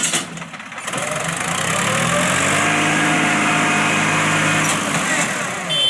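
Vehicle engine running at road speed, its pitch rising and then easing off near the end, over steady road and wind noise.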